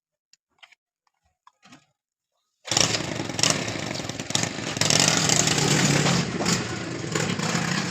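A machine starts running abruptly almost three seconds in, with a loud, steady mechanical noise.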